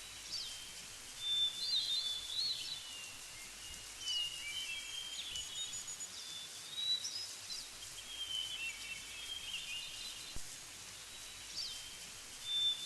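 A songbird singing short warbling phrases that recur every two to three seconds, over a faint steady background hiss.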